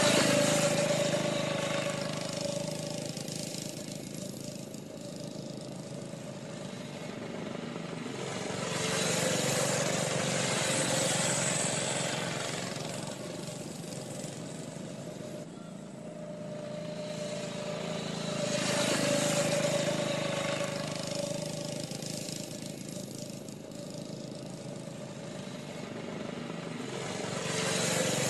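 Small go-kart engines running continuously, the sound swelling loud about every nine seconds and falling back between, as karts pass by.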